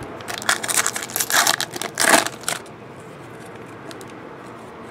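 Foil wrapper of a 2012 Bowman baseball card pack crinkling and tearing as it is ripped open: a run of rustles lasting about two seconds, loudest near the end.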